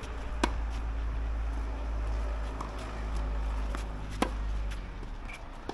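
Tennis ball being struck by rackets in a rally. There are two sharp, loud hits about four seconds apart and fainter knocks between them, over a steady low rumble that fades near the end.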